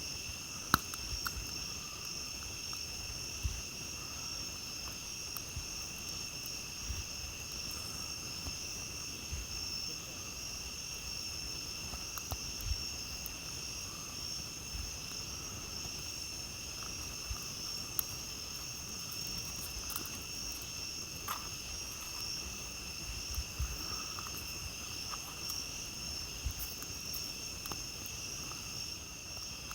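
Steady night chorus of crickets trilling at several high pitches at once, with sparse crackles and pops from a campfire, the sharpest about a second in.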